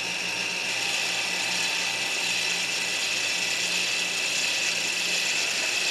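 A 2012 Hyundai Grandeur's electronic parking brake caliper actuator motor runs with a steady high whine. It is applying the parking brake, pushing the freshly replaced pads against the disc.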